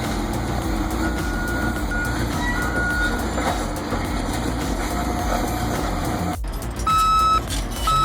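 A bulldozer's diesel engine runs steadily with a heavy low rumble. After a sudden cut about six seconds in, a reversing alarm starts beeping about once a second over the engine, sounding twice before the end.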